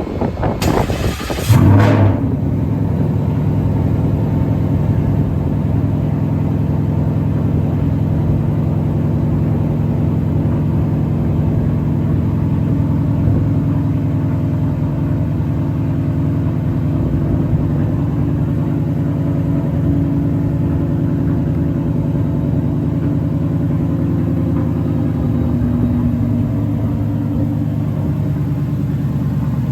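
Supercharged Ford V8 engine starting with a loud burst about two seconds in, then idling steadily.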